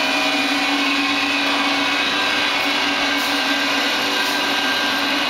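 Citizen L20 CNC Swiss lathe powered up and running, giving a steady machine hum and whine made of several constant tones over a smooth rushing noise, with no change in pitch or level.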